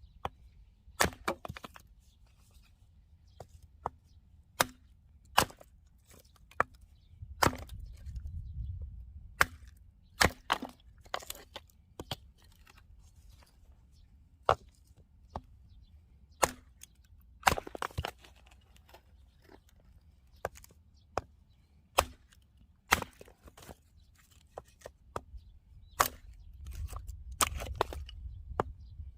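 Axe splitting firewood: a string of sharp chops and wood cracks at irregular intervals, some in quick pairs.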